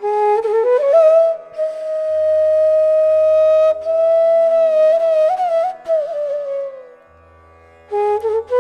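Instrumental background music in Indian classical style: a flute-like melody holds long, bending notes over a steady drone. The phrase falls away about seven seconds in, and a new one begins near the end.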